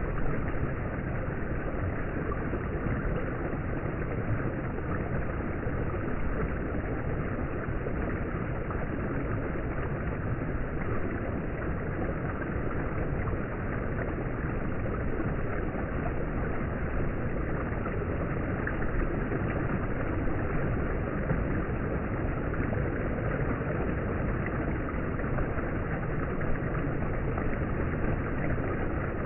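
Stream water rushing steadily down a small rock cascade.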